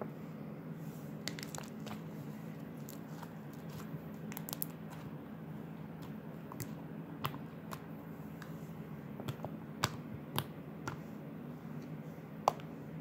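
Soufflé slime being pressed and poked with fingers, giving scattered small wet clicks and pops at irregular times, the loudest near the end, over a faint steady hum.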